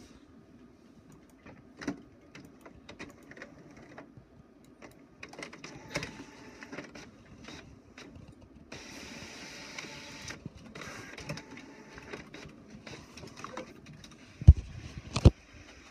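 All-in-one inkjet printer printing a page: irregular clicks and whirs of the carriage and paper feed, with a steadier whirring stretch of about a second and a half around the middle. Two loud thumps near the end.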